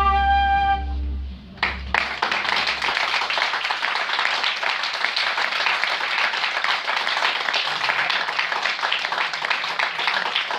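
A transverse flute with piano holds a final note that stops about a second in. After a short pause, an audience starts applauding at about a second and a half and keeps on.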